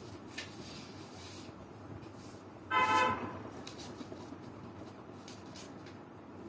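A single short vehicle horn toot about three seconds in, over faint scratching of a marker colouring on paper.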